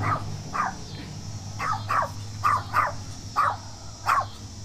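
A dog barking repeatedly: about eight short barks in quick, uneven succession.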